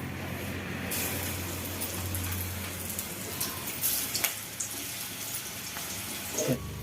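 Pieces of arbi (colocasia) leaf roll deep-frying in hot oil in a kadhai: a steady sizzle, with a few light clicks.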